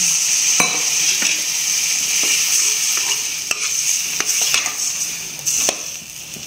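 Water poured into a hot kadai of frying onion-tomato masala sizzles, and a perforated ladle stirs it, clicking and scraping against the aluminium pan several times. The sizzle dies away toward the end.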